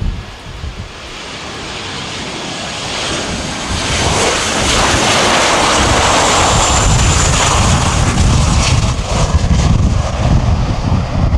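Boeing 737-800 jet engines (CFM56-7B) on a landing: the roar builds over the first few seconds as the airliner comes in low and passes, with a high fan whine at its loudest. It then settles into a low rumble as the jet touches down and rolls out on the runway.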